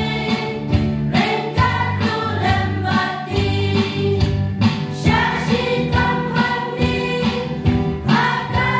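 Women's choir singing a Khasi gospel song in harmony, amplified through stage microphones.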